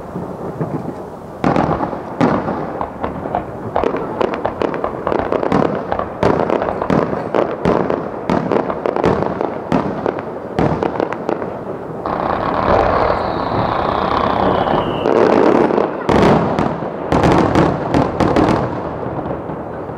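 Aerial fireworks bursting in quick succession: a dense run of bangs and crackles that starts abruptly about a second and a half in. A whistle falling in pitch sounds about two-thirds of the way through.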